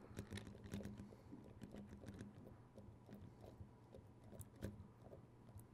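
Faint handling noises as a DSLR camera is twisted onto a ball head: a scatter of small clicks and rubs, over a low steady hum.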